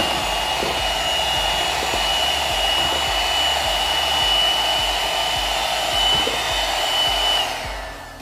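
Electric hand mixer running steadily with a high whine, its twin beaters whipping egg-and-sugar batter in a steel bowl. It switches off near the end.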